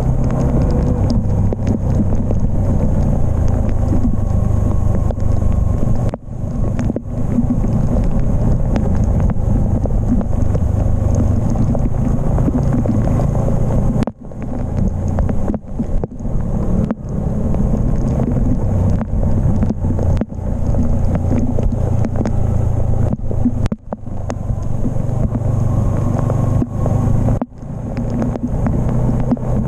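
Wind rushing over an action camera's microphone on a Yamaha MT-15's ride at speed, with the bike's single-cylinder engine running underneath. The noise drops out briefly a few times.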